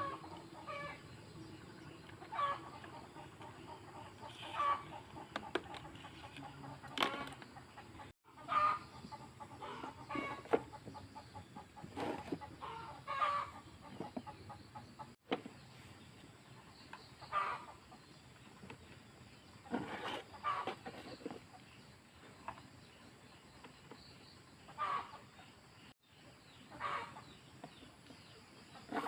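Chickens clucking in short calls every second or two, with a few sharp clicks between them.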